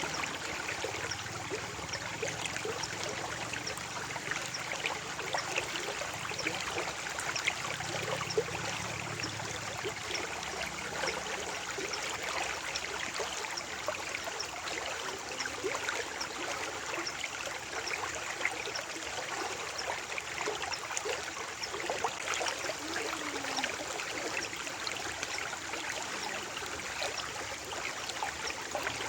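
Shallow stream flowing steadily, water trickling and splashing over stones with a busy, fine-grained babble.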